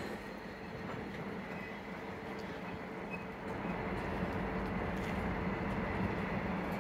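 Passenger railcars, an open-air car and a caboose, rolling slowly along the track: a steady rumble with a low hum and a few faint clicks from wheels and couplers, growing a little louder about halfway through.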